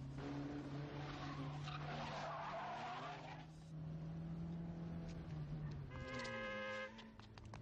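Car engine running hard at speed, with tyres skidding. A short high screech comes about six seconds in.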